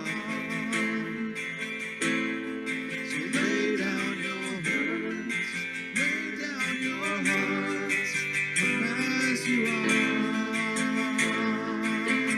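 Acoustic guitar strumming a worship song, with a singing voice along with it at times.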